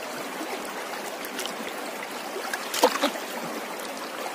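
Shallow river water running over rocks, with a hand sloshing in the water as it feels around behind a stone. A brief louder splash comes about three seconds in.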